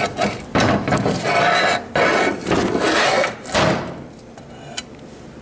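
Metal transmission channel-plate parts being handled and rubbed together on the bench: scraping and rattling for about four seconds, then quieter.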